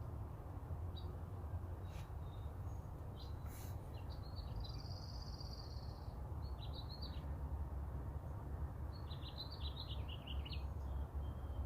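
Birds chirping, with a run of high twittering notes about four seconds in and another about nine seconds in, over a steady low hum.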